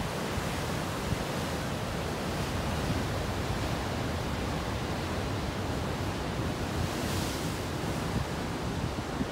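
Pacific Ocean surf breaking and washing in a steady roar, with wind buffeting the microphone. A wave's hiss swells briefly about seven seconds in.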